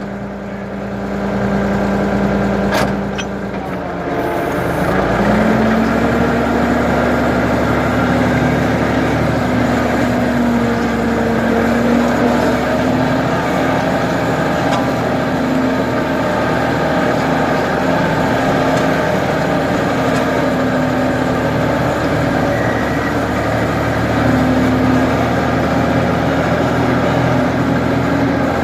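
Ford 550 backhoe engine running steadily. About four to five seconds in, the engine speed picks up and then holds at the higher speed.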